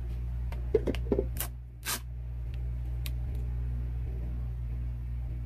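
Sticky contact paper being peeled off a resin-coated panel, giving a few short crackles and snaps in the first two seconds, over a steady low hum.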